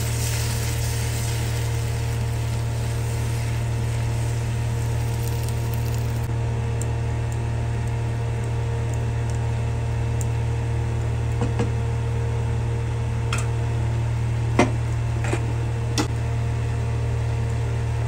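Thick curry masala sizzling in a nonstick frying pan while being stirred with a wooden spatula, over a steady low hum. The sizzle thins out about six seconds in, and a few short clicks of the spatula against the pan come later.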